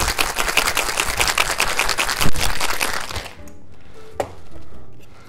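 Ice rattling hard in a copper cocktail shaker being shaken in a fast, even rhythm to emulsify an espresso cocktail. The rattle stops about three seconds in, and a single sharp click follows about a second later.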